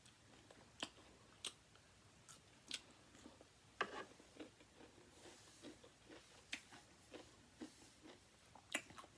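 Faint, irregular crisp crunches of someone chewing fried chicken wings close to the microphone, about a dozen short snaps spread over several seconds.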